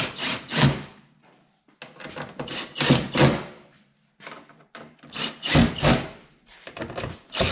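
Cordless drill driving screws in four short bursts, snugging up the screws that hold a front splitter to a car's bumper.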